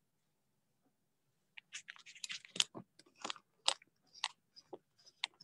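Someone chewing crunchy food close to an open microphone: about a second and a half in, a quick, irregular run of short crunches begins.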